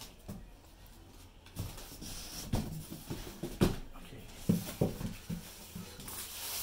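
Cardboard cartons and packing being handled, with several dull thumps and knocks as the boxes are shifted, the loudest a little past halfway.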